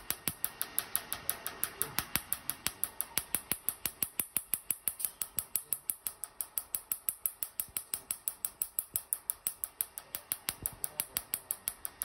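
Tattoo-removal laser handpiece firing pulse after pulse against the skin: a fast, even train of sharp snaps, roughly six a second.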